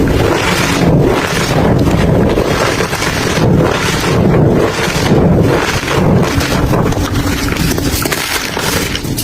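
Dry crumbly material being crushed and crumbled, a dense crunching that swells in repeated pushes a little more than once a second.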